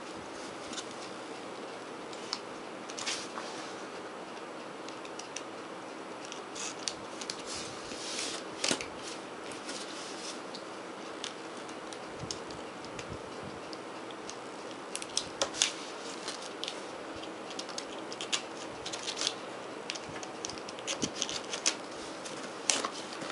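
Fingernails picking and scratching at clear packing tape on a cardboard box: scattered small clicks and short scratchy peels, coming more often in the second half.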